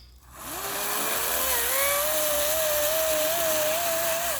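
Battery-powered electric chainsaw spinning up with a rising whine about half a second in, then running steadily with a slight waver in pitch as it cuts through a log.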